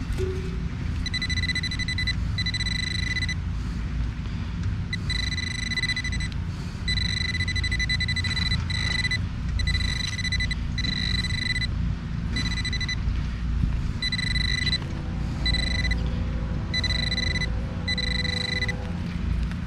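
Metal-detecting pinpointer beeping on and off in a high, steady tone as it is worked around a buried target, a piece of tin can. The beeps come in runs of varying length over a low rumble of handling noise.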